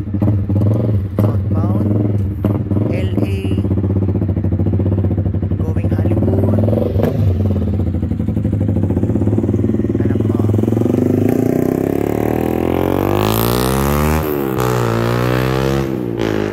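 A vehicle engine running steadily, then a vehicle speeding past on the bridge roadway about 13 to 15 seconds in, its engine pitch climbing and then dropping as it goes by.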